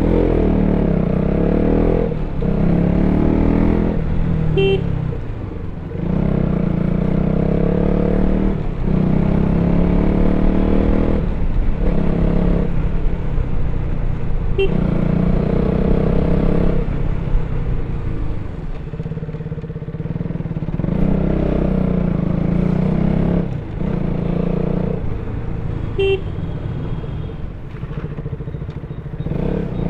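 KTM RC 200's single-cylinder four-stroke engine through its stock exhaust, heard from the rider's seat: revving up and easing off again and again as the bike pulls through the gears, with short dips between pulls. Three short horn beeps sound over it.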